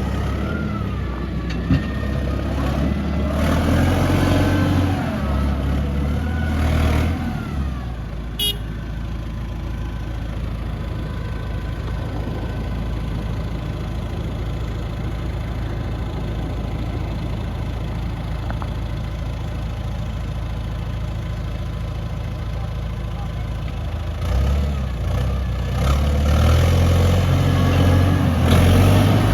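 Heavy diesel earthmoving machinery running steadily, working harder and louder for several seconds near the start and again near the end, with an even lower drone between. A brief high-pitched chirp about eight seconds in.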